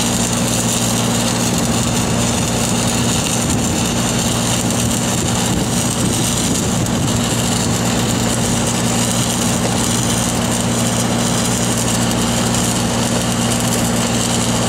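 Engine-driven welding machine running steadily, with an even engine hum.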